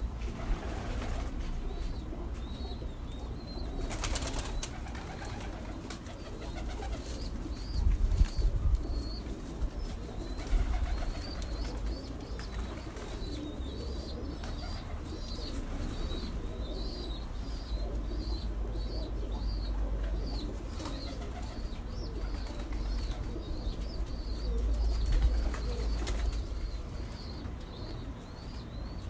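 Birds calling: low cooing with a steady run of short high chirps, about one or two a second through the second half. A deep rumble underneath and a brief sharp noise about four seconds in.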